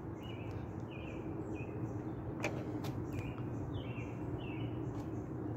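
A bird chirping over and over, short chirps about twice a second, over a steady low background hum, with a faint click about two and a half seconds in.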